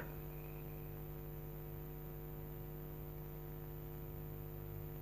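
Steady low electrical mains hum with a light hiss.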